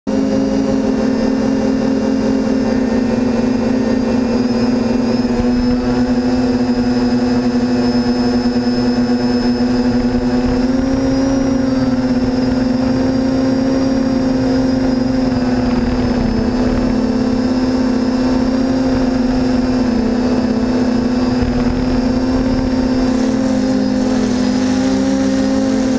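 Electric motors and propellers of a small FPV aircraft in flight, heard from its onboard camera: a steady whine whose pitch shifts a little up and down with the throttle, with wind rumble on the microphone underneath.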